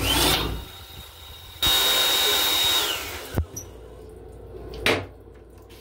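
Built-in hand dryer of a train-restroom sink unit: its blower motor whines up, blows steadily for about a second and a half, then winds down. Two short knocks follow.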